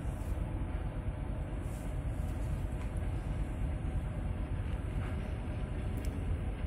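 EP1M electric locomotive hauling a passenger train, approaching from a distance: a steady low rumble, heavy in the bass, recorded on a smartphone microphone.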